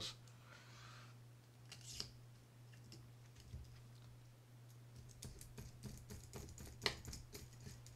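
Faint clicks and ticks of a screwdriver working the small screws out of a Shimano Bantam Curado CU-200 baitcasting reel's frame, a few at first and then a quick run of them from about five seconds in. A steady low hum sits underneath.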